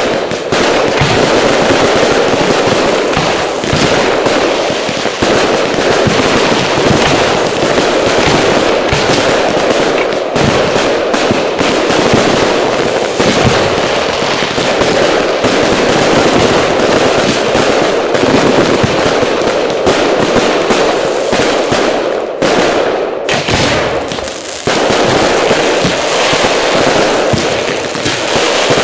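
Fireworks display: a dense, continuous barrage of shell bursts and crackling. It eases briefly about three-quarters of the way through, then picks up again.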